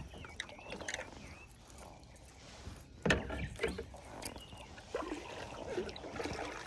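Knocks and bumps against a kayak, with a sharp knock about three seconds in and lighter clicks around it, over faint water sounds.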